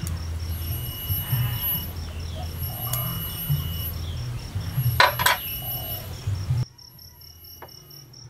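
Metal bonsai scissors clicking and being laid down on a stone table, the loudest click about five seconds in, over a steady low hum and high whistling calls. The background cuts out abruptly about two-thirds of the way through.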